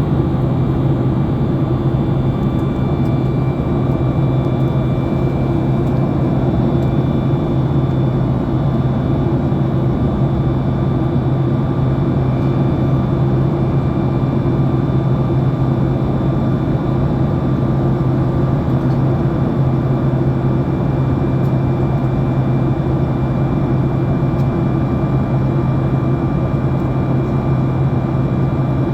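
Steady cabin drone of a Boeing 737 MAX 8 in its climb, heard from inside the cabin: CFM LEAP-1B engine and airflow noise with a constant low hum and a few faint steady higher tones.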